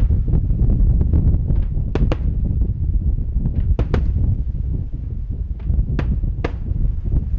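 Fireworks going off, with a scatter of sharp cracks and pops, over a steady low rumble of wind on the microphone.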